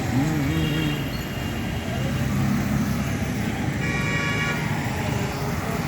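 Road roller's engine running steadily, with a vehicle horn tooting twice: briefly just after the start, and again for under a second about four seconds in.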